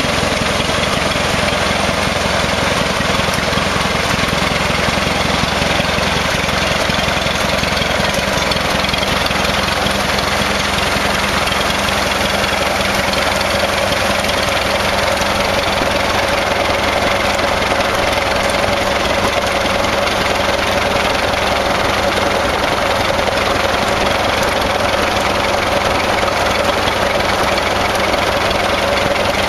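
Freshly restored Hart-Parr 28-50 tractor engine running steadily at idle.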